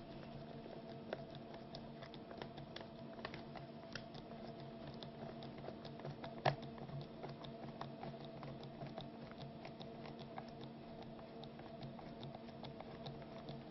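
Small irregular clicks and scrapes of a half-inch self-tapping sheet metal screw being driven by hand into the metal lid and rim of a Folgers coffee can, with one sharper click about six and a half seconds in. A faint steady hum runs underneath.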